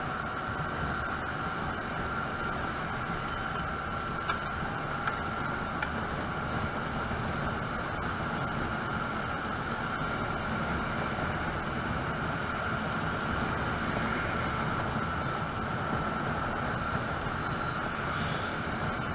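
Motor scooter riding at steady speed, heard from its handlebar: a continuous mix of engine, road and wind noise with a steady whine over it.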